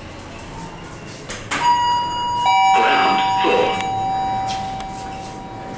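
Otis Gen2 lift's arrival chime: a two-note ding-dong, a higher note then a lower one about a second later, both ringing on for several seconds. A brief rush of noise comes just after the second note.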